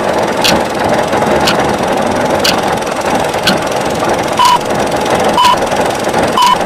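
An engine running steadily, a dense mechanical drone with a sharp click about once a second. From about four and a half seconds in, each click comes with a short high beep, three times.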